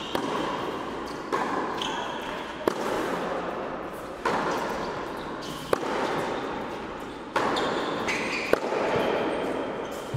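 Tennis rally on an indoor hard court: a racket striking the ball and the ball bouncing, with a sharp pop about every second and a half, echoing around the hall. Short high squeaks of shoes on the court come between shots.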